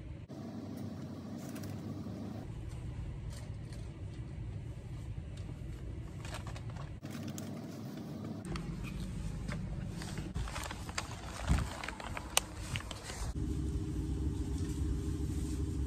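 Low rumbling background noise of a grocery shop, broken by several abrupt cuts. From about ten seconds in there is a cluster of clicks and rustling as goods and a plastic produce bag are handled, and near the end a steady hum sets in.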